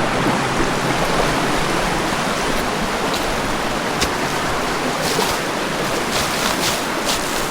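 Creek water rushing steadily over a rocky bed, running high after heavy rains, with a few short ticks in the second half.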